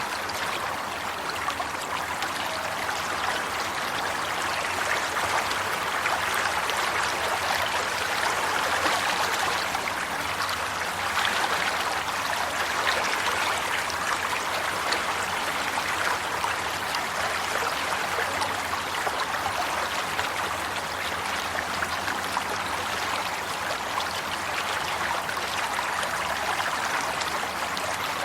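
Water flowing steadily in a stream, a constant splashing rush with fine trickling detail.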